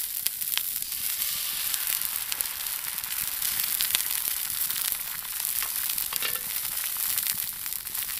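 Eggs frying in hot grease in a cast iron skillet over a campfire: a steady sizzle with many small sharp pops, the pan already very hot.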